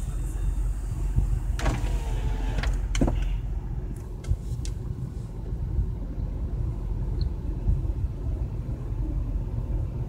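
Low, steady engine rumble heard from inside a car, with a handful of sharp clicks in the first half.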